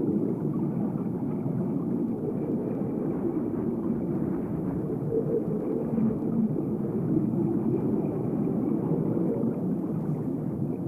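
Steady low rumble of underwater ambience, with no distinct events.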